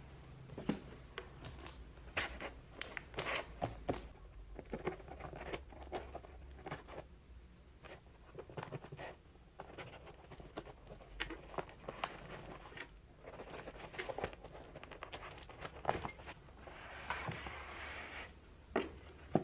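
Cardboard parcel handled on a wooden table: irregular taps and knocks as the box is set down and turned, and scraping of cardboard. Near the end comes a longer rasping stretch as the box is cut and its flap pulled open.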